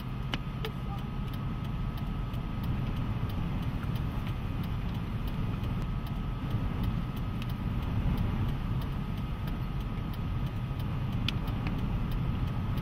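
Vehicle engine idling: a steady low rumble, with a faint steady high whine above it.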